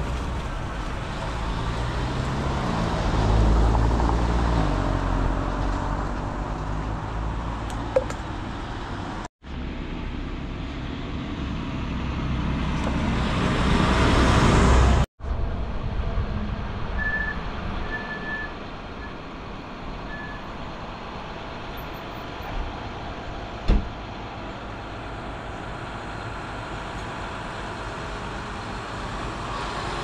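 Large farm tractor diesel engines: a John Deere tractor towing a seed drill runs past loudly, and after a sudden cut a second tractor's engine runs more quietly and steadily as it comes slowly up a narrow lane. A single sharp tick is heard about three quarters of the way through.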